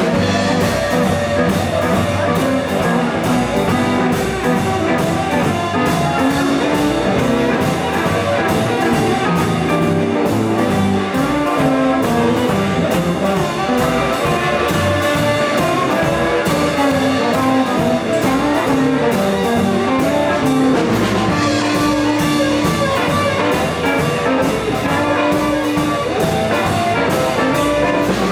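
Live 1950s-style blues band playing: a harmonica held to a microphone takes the lead over electric guitar, upright double bass and drum kit, with a steady beat.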